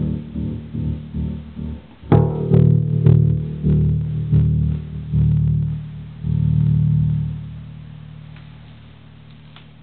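Electric bass guitar notes played through a homemade fidget-spinner tremolo pedal: the spinning arms pass over a photoresistor and pulse the volume, about four pulses a second at first. A fresh note is plucked about two seconds in, and the pulsing slows as the spinner winds down. A last note near the six-second mark holds steadier and fades out.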